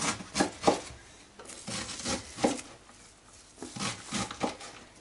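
Raw, pounded chicken chops being picked up and laid one on another on a plastic-covered board: a run of short soft slaps, in three quick groups of about three.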